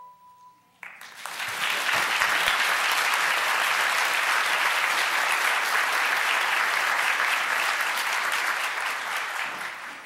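The last handbell note rings out and stops within the first second, then the audience breaks into steady applause that tapers off near the end.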